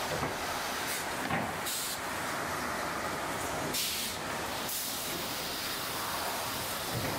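Wide belt sanding machine running in a plywood factory: a steady mechanical noise with brief surges of hiss now and then.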